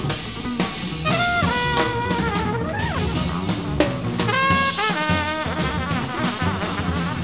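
Improvised jazz by a trumpet, bass and drums trio: the trumpet plays short, bending phrases, with a falling smear near the middle, over busy drum kit and walking bass notes.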